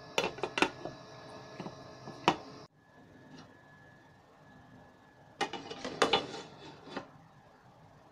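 A glass pot lid is handled, giving several sharp clinks and knocks against the pot rim in the first two and a half seconds. After a sudden cut, a spoon clinks and scrapes against the non-stick pan for about a second and a half as the boiled rice is turned over.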